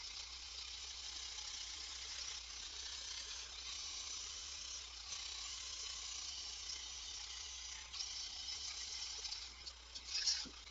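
A faint, steady hiss, with a couple of small knocks near the end.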